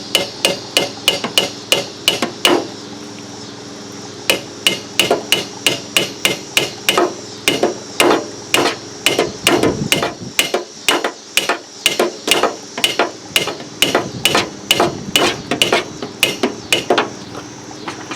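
Hammer tapping a stuck windshield wiper arm to loosen it from its pivot shaft: a steady run of light, ringing taps, about two to three a second, with a short pause about three seconds in. The tapping stops near the end.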